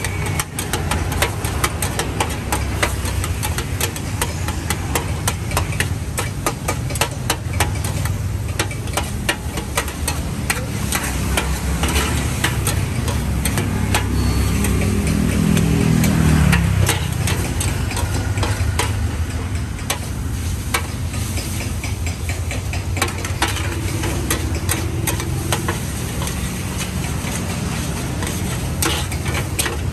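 Metal spatula scraping and clacking on a large shallow steel pan while noodles and beef are stir-fried, with frying sizzle. Under it runs a steady low hum of motorbike engines, and one louder passing vehicle swells about halfway through and then fades.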